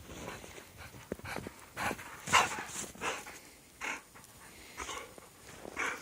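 A young dog panting close by, with footsteps crunching in snow, heard as a run of irregular short bursts; the loudest comes a little over two seconds in.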